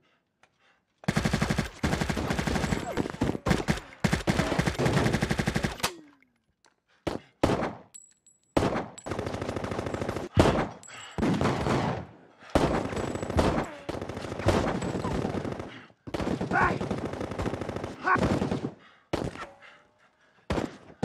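Automatic gunfire: rapid rounds in several long volleys, each lasting a few seconds, with short breaks between them.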